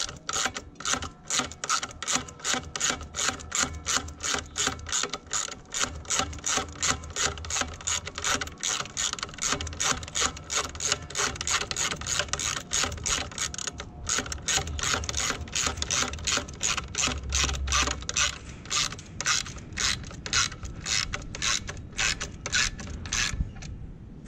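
Hand socket ratchet clicking steadily, about three to four clicks a second, as it tightens down a bolt, with a short pause about 14 seconds in.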